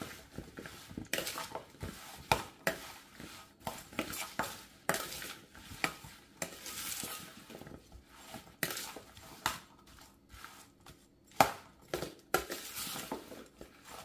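Halved Brussels sprouts being stirred with a large spoon in a plastic mixing bowl: irregular knocks and scrapes of the spoon against the bowl and the oiled sprouts shifting, a few a second.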